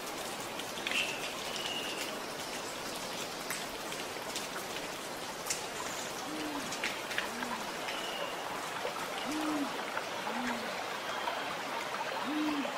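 A steady patter of water with fine drips and splashes. From about halfway through, an owl hoots low about once a second, the calls alternating higher and lower, five hoots in all.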